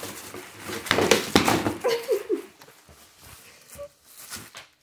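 Plastic treat packets and a cardboard gift box rustling and crinkling as a dog rummages through them, loudest about a second in. A short vocal sound comes about two seconds in.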